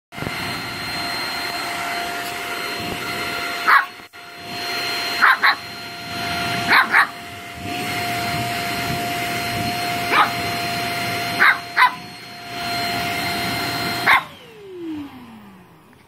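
Small vacuum cleaner motor running with a steady whine while a Shih Tzu puppy barks at it in short sharp barks, about nine, some in quick pairs. Near the end the motor winds down, its pitch falling as it fades.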